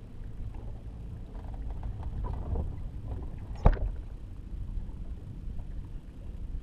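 A steady low rumble with scattered faint clicks, and one sharp knock a little past halfway.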